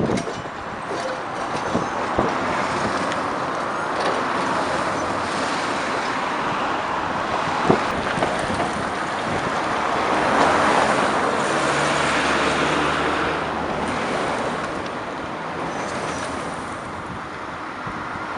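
Street traffic: motor vehicles passing in a steady wash of road noise, with a few sharp clicks and a low engine hum for a couple of seconds past the middle.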